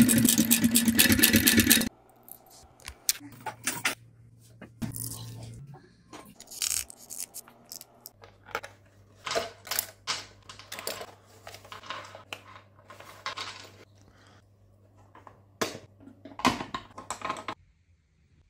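Hands handling a leather handbag and its packaging: scattered rustles, scrapes and small metal clicks and jingles from the bag's hardware. The first two seconds hold a loud, steady mechanical run that stops abruptly.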